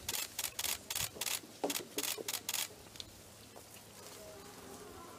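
Camera shutters clicking in a quick run of about ten sharp clicks, three or four a second, which stop about two and a half seconds in.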